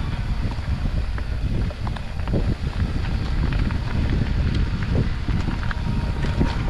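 Wind buffeting the microphone of a mountain biker's camera while riding, a steady low rumble with scattered clicks and knocks from the bike on the trail.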